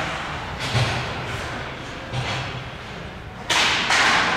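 Ice hockey play: skate blades scraping and cutting the ice in three short hissing bursts, the last and loudest starting sharply near the end, with faint dull thuds alongside the first two.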